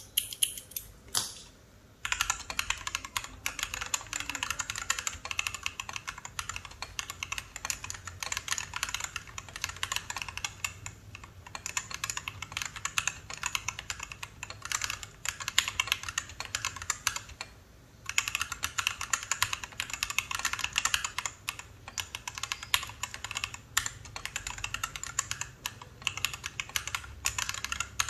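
Typing sound test on a Gamakay CK61 mechanical keyboard with TTC switches, XDA keycaps and a steel plate: a fast, steady clatter of keystrokes that starts about two seconds in, with brief pauses around a third and two-thirds of the way through.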